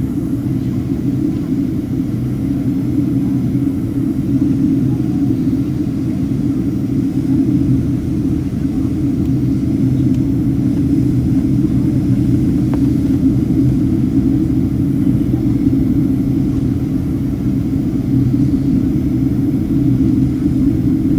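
Steady engine and airflow noise inside the cabin of a Boeing 767-300ER in flight, a constant low-pitched rumble with no change in level.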